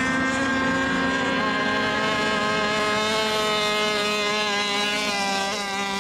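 Several radio-controlled racing boats running laps together. Their motors make a steady, high, buzzing whine of overlapping pitches that drift slowly up and down, with a short dip and recovery near the end.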